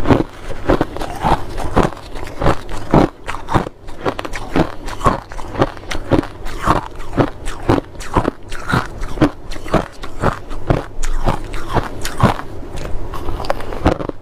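Crunchy white snow ice being bitten and chewed close to the microphone: a steady run of sharp crunches, about two to three a second.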